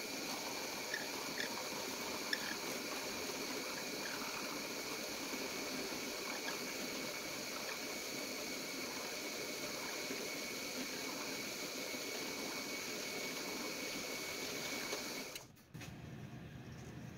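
Drill press running at 2430 RPM with a half-inch Forstner bit boring into soft, beetle-riddled wood: a steady high whine over the rasp of cutting, with a few small ticks early on. It cuts off suddenly near the end.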